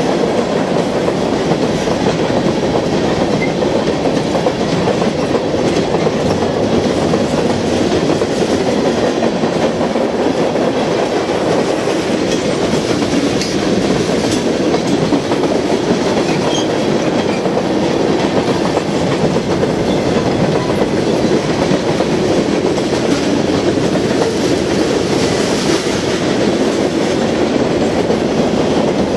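Freight cars of a manifest train, covered hoppers and tank cars, rolling steadily past close by: a continuous loud rumble of steel wheels on the rails that does not let up.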